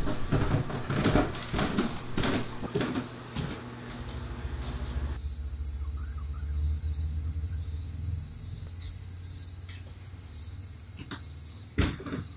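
Low steady rumbling drone with a thin, steady high tone over it, in a dark horror-film soundscape. The first few seconds have scattered clicks and knocks; about five seconds in, the middle of the sound drops out abruptly, leaving mostly the low drone. A sharp knock comes near the end.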